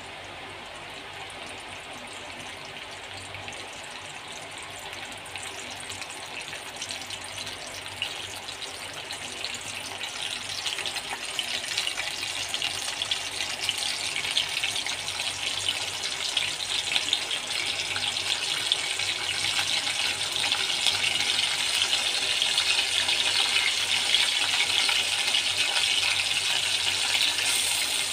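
Oil sizzling and crackling in a wok around tempering seeds and a green chilli, growing steadily louder as the oil heats.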